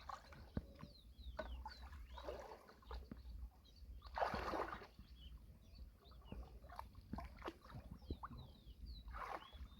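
Shallow lake water sloshing and splashing as someone gropes through it by hand for snails and clams, with a louder splash about four seconds in and a few small clicks.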